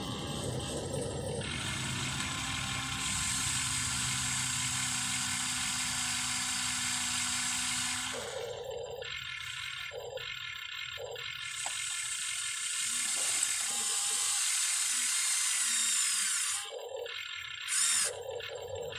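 Small electric motors and gearboxes of a Huina 1593 RC excavator whirring as it works, running steadily at first, then starting and stopping in short stretches from about halfway through.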